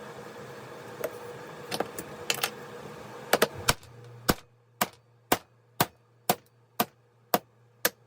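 Hammer blows knocking the old bearings out of a chainsaw crankcase half: a few scattered taps at first, then from about halfway a steady run of sharp strikes about two a second.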